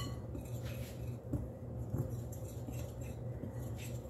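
Wire whisk stirring dry flour in a glass bowl: faint, irregular scratching strokes with a few light clicks of the wires against the glass.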